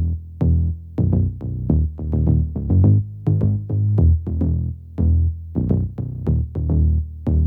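Electronic background music with a steady drum-machine beat and a low bass line.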